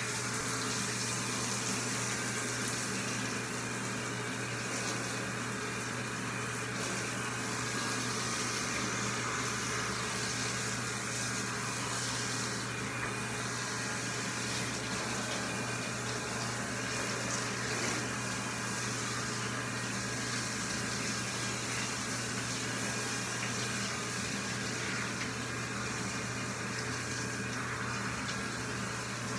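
Handheld shower sprayer running steadily, water spraying onto a German Shepherd's wet coat to rinse out the shampoo, with a steady low hum underneath.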